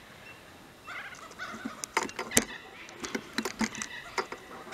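Faint bird calls with scattered sharp clicks and taps.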